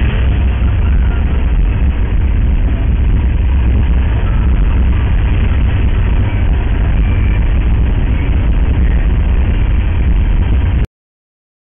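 Steady road noise inside a moving car, picked up by a dashcam microphone: a deep rumble of tyres and engine at road speed with a hiss of wind over it. It stops abruptly near the end.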